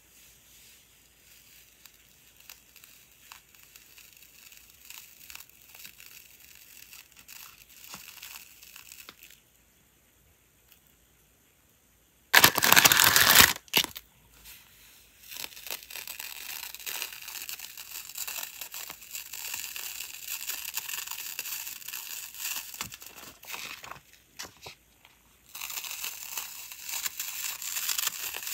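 Wide clear plastic tape being unrolled and handled, its thin film crinkling and peeling off the roll. About twelve seconds in, a loud rip lasting about a second as a length is pulled off the roll.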